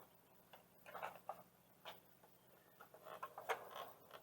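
Faint, irregular small clicks and taps of plastic parts being handled as an LED turn-signal unit is worked into a tail-light housing.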